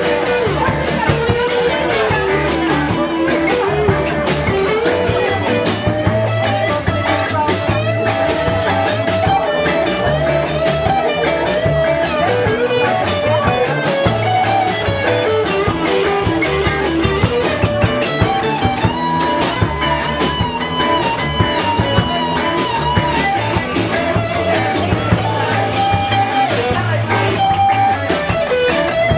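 Live rock band playing an instrumental break: a wandering lead melody over bass guitar and a drum kit with steady cymbal hits.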